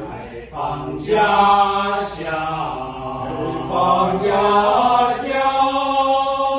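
Small male ensemble singing a cappella in several voice parts, moving through sustained notes and settling into a long held chord from about five seconds in.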